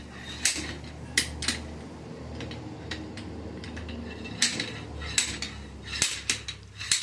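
Irregular sharp metallic clinks and clanks of hand tools and metal parts being handled while a Mazda 13B rotary engine is taken apart, over a low steady hum.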